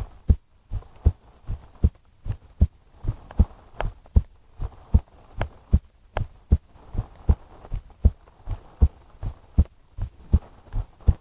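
A woman's heartbeat heard close up through a chest microphone, each beat a paired lub-dub thump, in a steady rhythm of a little over one beat a second. A soft hiss swells and fades every few seconds underneath.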